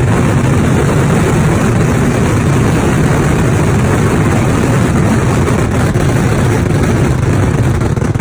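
Massed fireworks going off in a dense, continuous barrage, the bangs so rapid they merge into one loud, unbroken rumble.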